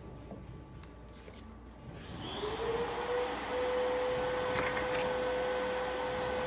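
An electric motor-driven machine switches on about two seconds in. Its whine rises over about a second as it spins up, then runs steadily with an airy rush, like a shop vacuum or blower.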